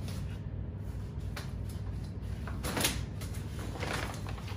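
Camping cot being folded up: the metal-tube leg frame clacks and knocks several times as its joints collapse, the loudest knock about three seconds in, with the fabric bed rustling.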